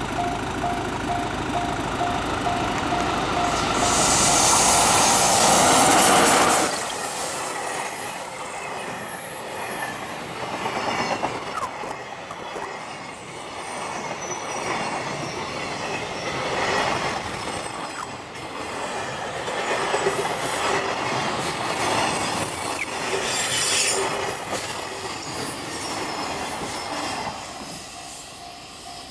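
Electric train running on rails, with wheel squeal and clicks over rail joints. The loudest stretch is in the first six seconds, ending in a sharp drop, followed by an uneven rushing rumble.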